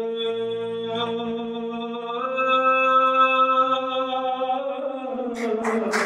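A man singing slow, long-held notes into a microphone, with no drum beat. The pitch steps up about two seconds in and slides down near the end. There are a couple of short knocks just before the end.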